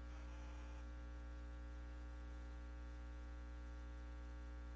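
Faint steady electrical hum with a light hiss: background noise on the recording line, with no other sound.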